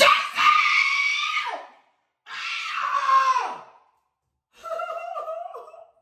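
A woman screaming three times, each scream about a second and a half long and sliding down in pitch at its end, the last one lower. She is reacting to baby powder that blew out of her hair dryer into her face.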